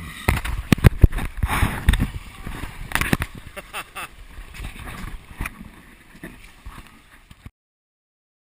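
Water rushing and splashing on a water slide, heard through a GoPro's housing, with many knocks and bumps against the camera. It fades and cuts off to silence near the end.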